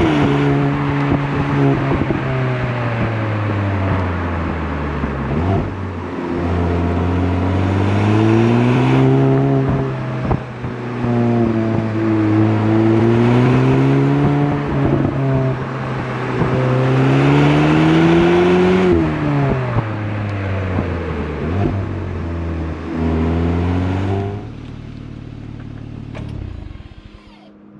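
Cupra Formentor VZ's 310 hp two-litre turbocharged four-cylinder engine and exhaust, in stock form, under repeated acceleration. The engine note climbs in pitch and drops back several times, then settles to a lower, quieter steady hum for the last few seconds.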